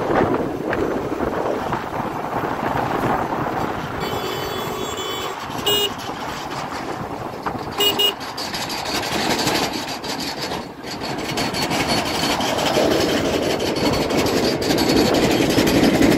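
Steady wind, engine and road noise of a motorcycle riding along a highway past heavy vehicles, with a vehicle horn sounding: a longer toot about four seconds in, then short beeps near six and eight seconds in.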